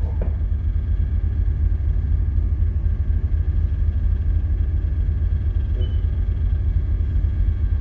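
Steady low rumble of a ship underway, heard on its bridge: engine and machinery noise with a few faint steady hums above it.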